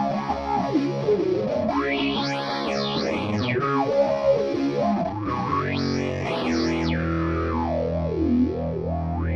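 Electric guitar chords played through an Eftilo Cratere effects-plugin preset: distorted, with a sweeping effect that rises and falls in pitch every second or two over the held notes.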